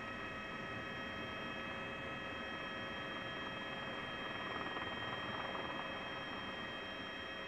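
A steady hum and hiss with several steady high-pitched tones, swelling slightly around the middle; no firework bangs stand out.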